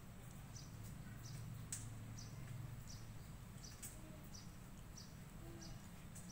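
Faint high chirps from a small animal, repeating evenly about every two-thirds of a second, over a low steady hum.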